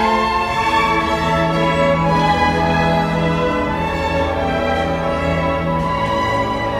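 Symphony orchestra playing live: violins bowing sustained notes over held low notes from the lower strings.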